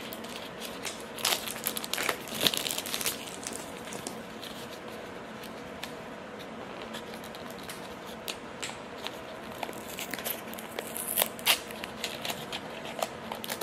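Small cardboard Sonny Angel blind box being pulled open by hand and the wrapped figure inside handled: scattered crinkling, crackling and tearing, loudest about a second in and again near the end.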